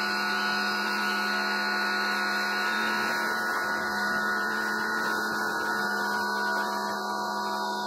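Teande electric pressure washer running, its motor and pump giving a steady, even hum while the stock gun sprays rinse water onto a car.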